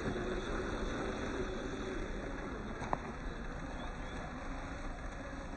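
Radio-controlled scale crawler driving slowly over gravel: a steady noise of its small electric motor and tyres on stones, with one sharp click about three seconds in.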